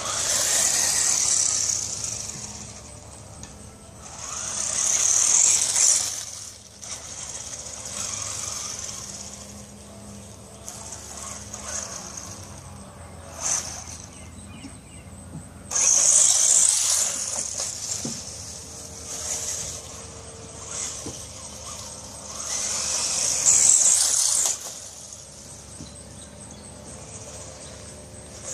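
Electric RC truck being driven, its motor and gears whining and its tyres running over the ground. The sound comes in surges as the throttle is pulled, loudest four times for a second or two each.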